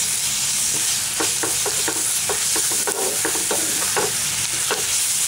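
Chopped onions, green chillies and ginger-garlic paste sizzling in oil in a nonstick frying pan, stirred with a wooden spatula. Over a steady sizzle, the spatula scrapes and taps against the pan in short, irregular strokes, two or three a second.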